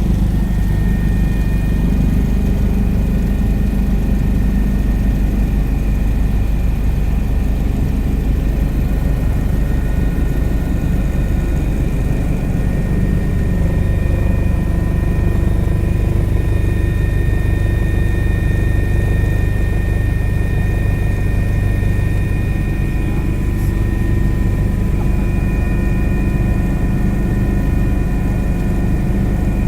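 PZL W-3 Sokol helicopter heard from inside the cabin in steady flight: a constant low rotor and engine rumble with a steady high whine over it.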